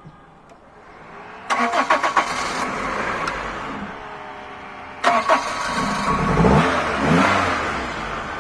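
Car engine cranked by the starter and catching about 1.5 s in, running, then cranked again just after 5 s and revved, its pitch rising and falling.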